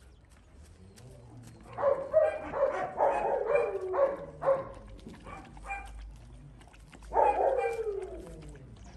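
Dog barking: after a quiet start, a quick run of about six barks, then one longer bark falling in pitch near the end.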